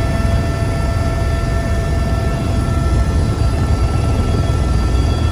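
Helicopter's turbine engine and rotor running steadily, heard from inside the cabin: a heavy, even rumble with a steady high whine over it.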